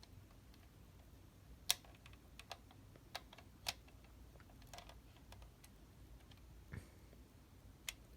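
Faint, irregularly spaced clicks and taps, about ten in all. The loudest is a sharp click near two seconds in, and a duller knock comes near the end.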